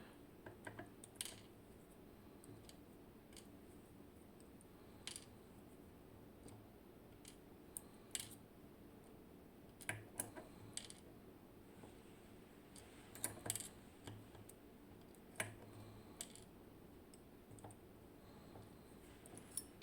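Faint, irregular small clicks and taps of metal parts and tools as a Zikon RW6 dimple lock is taken apart.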